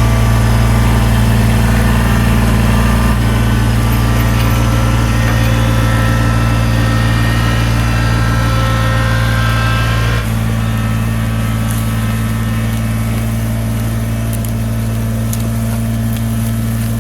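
Tractor engine running steadily at a constant speed, close by. About ten seconds in its sound drops slightly and stays that way.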